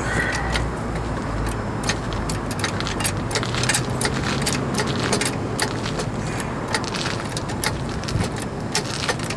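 Rapid, irregular light metallic clicks and clatter from a floor jack being worked under the front of a car to raise it.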